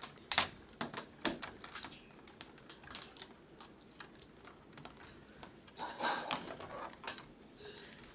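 Plastic spiral cable wrap clicking and rustling as it is wound around two cables, in quick irregular ticks.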